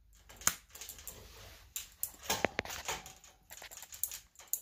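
Small 5 V relay modules clicking one after another, roughly a second apart, as the Arduino starter tree switches its lights through the countdown.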